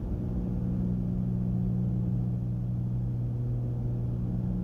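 Steady drone of a Cessna 310's twin piston engines and propellers in cruise-power descent, heard from inside the cockpit, an even hum with no change in pitch.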